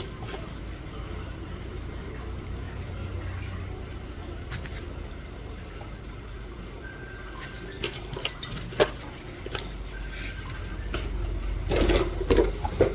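Steady low room hum with a few scattered light clicks and taps; near the end, a cluster of louder knocks and rustling handling noise.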